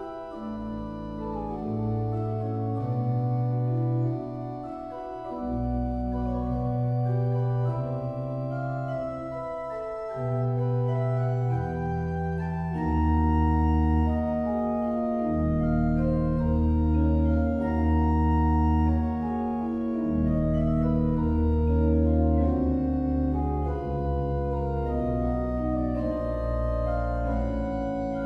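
Pipe organ playing a slow passage of sustained, overlapping chords on the manuals over held pedal bass notes. The bass grows heavier and the sound a little louder about twelve seconds in.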